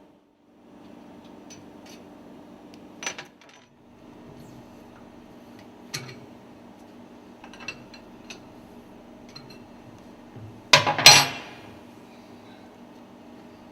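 Metal tools and lubricator parts clinking as they are handled during disassembly: scattered light clinks, then a louder clatter of several metal knocks about eleven seconds in, over a steady machinery hum.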